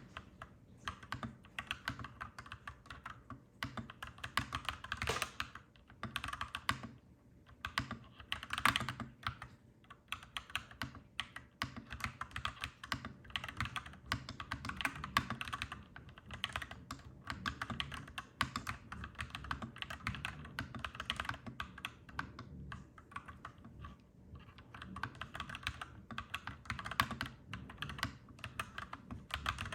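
Clacky mechanical keyboard being typed on in quick runs of keystrokes with short pauses between them.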